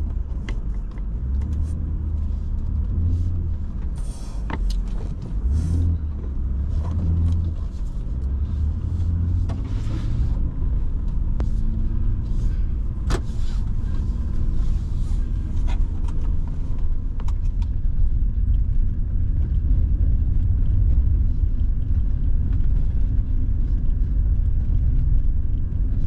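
An off-road SUV heard from inside the cab, driving slowly over a rutted dirt trail. Its engine and tyres make a steady low rumble, with scattered clicks and knocks as it rolls over the rough ground.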